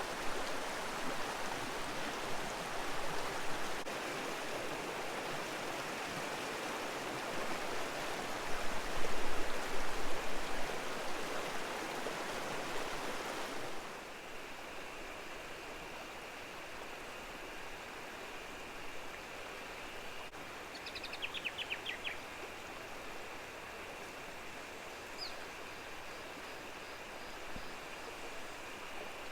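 Clear-water stream flowing over rocks, a steady rush of water that drops abruptly to a quieter murmur about halfway through. A steady high thin tone then sits under the water, and a bird gives a short run of rapid chirps, then a single chirp a few seconds later.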